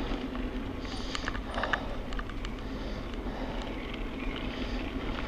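Bicycle rolling along a dirt path: a steady rolling noise from the tyres, with scattered small clicks and rattles, mostly between about one and two seconds in.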